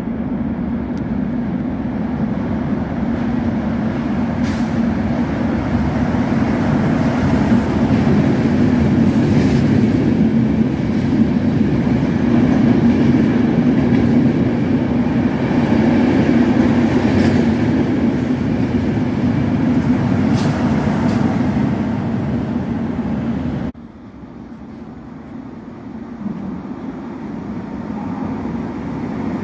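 A locomotive-hauled passenger train runs through a covered station, its coaches' wheels rumbling and rattling steadily on the rails with a few sharp clicks. About 24 seconds in the sound cuts to a quieter hum that swells as a Frecciarossa 1000 high-speed train approaches.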